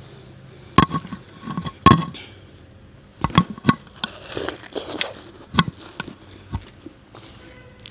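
Close-miked bites into watermelon: a handful of sharp, crisp crunches, the loudest about one and two seconds in, with a softer wet stretch of chewing in the middle.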